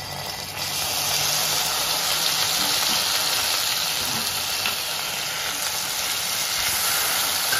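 Ground onion, garlic, cashew and chilli paste frying in hot ghee in a kadhai: a loud, steady sizzle that swells about a second in as the paste hits the fat.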